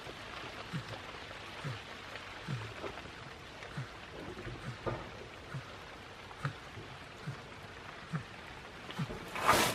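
Rain falling steadily in a steady hiss, with a soft low sound repeating about once a second and a louder rustle near the end.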